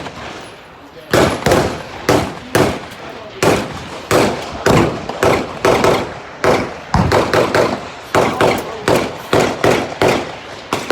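Repeated gunfire at a shooting range: about twenty sharp, loud shots at an uneven pace of roughly two a second, each followed by a short echo.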